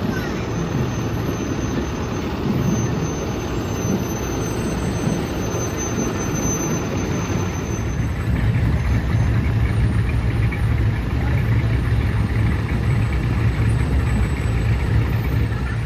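Fire-truck engines running as the trucks roll slowly past in a parade line, a steady heavy rumble that grows louder about halfway through.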